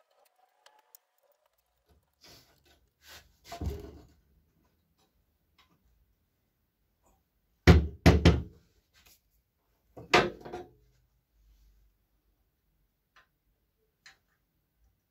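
Knocks and clunks of a welded steel frame and bar clamps being handled and set down on a wooden workbench. A few quieter knocks come in the first four seconds, three loud knocks close together about eight seconds in, another loud knock about ten seconds in, and faint ticks near the end.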